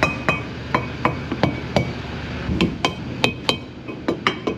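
A metal tire thumper striking the dual tires of a tractor-trailer, about a dozen sharp knocks at two to three a second, some with a short metallic ring. Striking each tire this way checks that none of them is flat.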